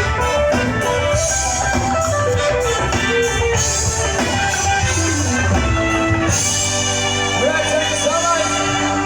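Live band playing through a PA sound system, with singing and guitar over drums. About six seconds in the playing settles into long held notes.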